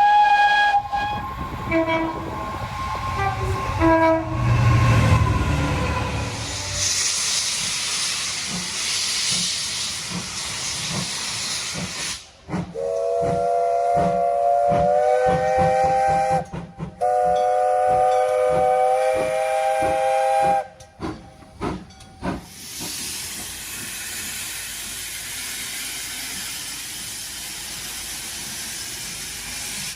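Steam locomotive blowing off steam with a steady hiss, and its whistle sounding a chord of several tones for about eight seconds in the middle, with one short break.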